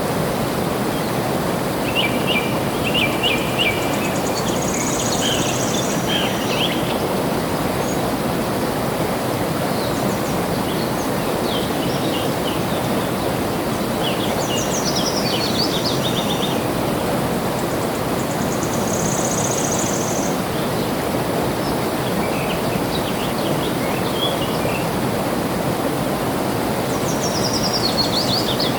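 Steady rush of flowing water with several birds singing over it: short chirps and high trills, including a quick descending trilled run in the middle and another near the end.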